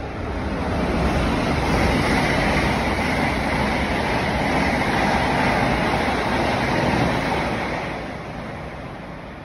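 Passenger train running through the station at speed: a loud, steady rush of wheel and air noise that swells in the first second, holds, then fades away over the last two seconds.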